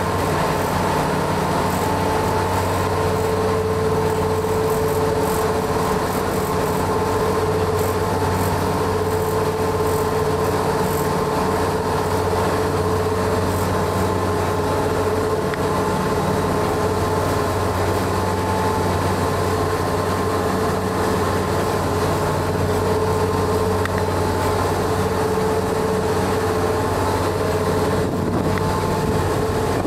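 A ferry's engines running steadily while underway, heard on board: a constant low drone with a steady hum over it.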